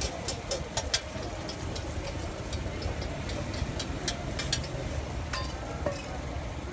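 Eggs frying in oil on a large flat griddle, with scattered sharp crackling pops as oil is poured over them, over a steady low rumble.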